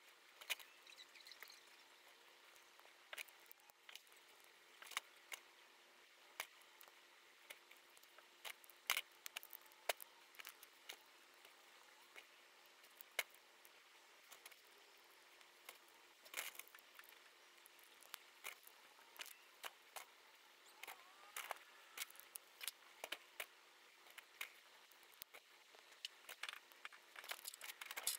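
Irregular sharp clicks and clatters of small plastic Lego pieces being handled and snapped together, over a faint steady hum.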